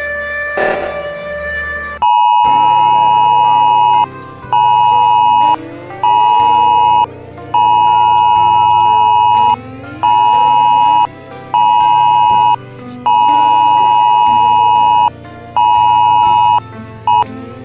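Loud synthesized alarm tone near 1 kHz, beeping in a repeated long-short-short pattern (long beeps of about two seconds, short ones of about one second), over dark background music with a low drone and rising sweeps. The beeping starts about two seconds in, after a brief stretch of music alone.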